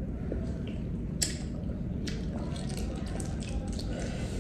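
Eating sounds from boiled balut duck eggs: wet mouth sounds as the eggs are sucked, then small crackling clicks of eggshell being picked and peeled, the sharpest about a second in.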